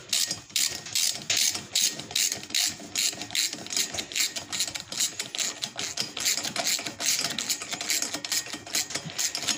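Hand ratchet clicking rapidly as it is swung back and forth, tightening the bolt that holds a drive shaft adapter to the flywheel of a Briggs & Stratton Vanguard engine.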